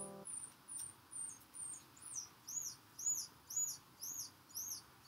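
An animal gives a steady series of short, high chirps, about two a second, each rising and then falling in pitch. The chirps grow louder after the first couple of seconds. At the very start the last notes of a mallet-percussion tune fade out.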